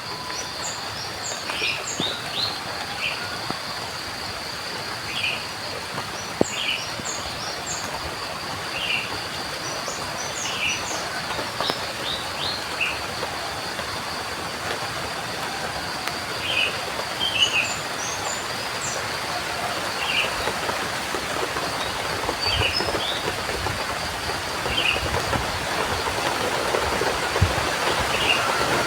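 Steady rain falling, with small birds chirping in short calls every second or so and a steady high-pitched whine underneath. The rain grows a little louder in the last several seconds.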